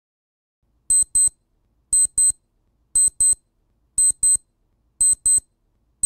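Digital alarm sound from a WAV file played back by a program: short high-pitched electronic beeps in pairs, one pair a second, starting about a second in. The first beeps start cleanly, with no burst of noise before them, since the file header is no longer sent to the sound server.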